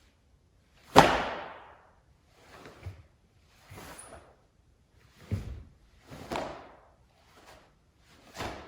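A wooden bō staff swishing through the air in a series of strikes and thrusts, about eight sweeps in all. The loudest is a sharp knock about a second in, and there is a dull thump a little after halfway.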